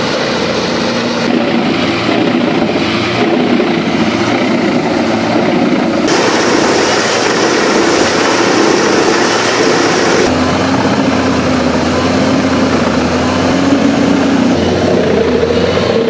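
Mus-Max mobile wood chipper running loud and steady, its engine drone mixed with the noise of whole trees being chipped. The sound changes abruptly about one, six and ten seconds in.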